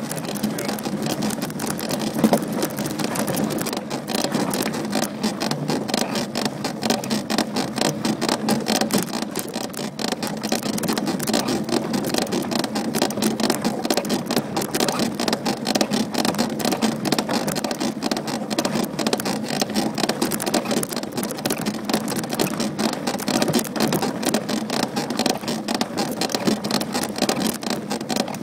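Trek Top Fuel 9.9 SSL full-suspension mountain bike being ridden over dirt, heard close to the frame: a continuous run of fast clicks and rattles from the bike, with tyre noise over the ground. The bike has a creak that the rider is trying to capture.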